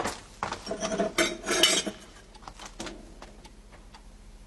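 Glass wine glasses and a wine bottle clinking and rattling as they are picked up and handled, with a short ringing note, for about the first two seconds; after that only a few faint small knocks.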